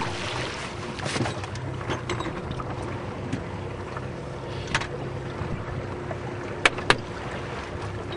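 Small fishing boat's motor running steadily under way, over the rush of wind and water. Two sharp knocks come in quick succession about seven seconds in.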